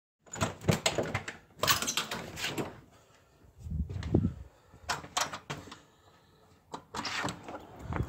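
Irregular knocks, clunks and rustling handling noises, with a heavier low thud about four seconds in.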